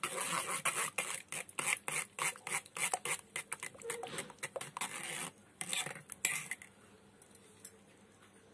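Spoon stirring raw mango pana in a stainless steel bowl, with rapid clinks and scrapes against the steel as ground mint paste is mixed into the strained pulp. The clinking dies away about six and a half seconds in.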